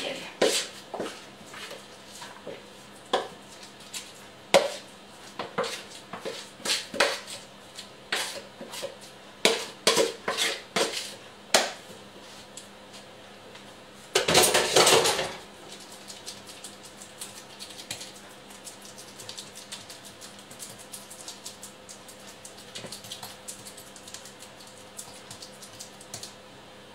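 Kitchen utensils on cookware: a spoon scraping and knocking against a mixing bowl and baking pan in a quick, irregular series of clicks and knocks as batter is scraped out. About fourteen seconds in comes a loud rush of noise lasting over a second at the sink, followed by faint light scraping as the batter is smoothed in the pan.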